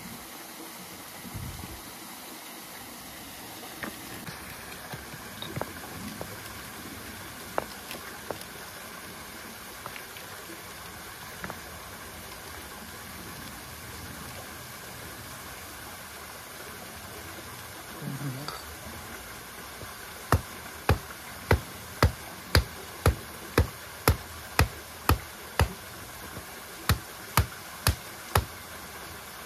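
A regular run of sharp knocks, about two a second: ten strikes about two-thirds of the way in, a short pause, then four more. A few single clicks come earlier over a faint steady hiss.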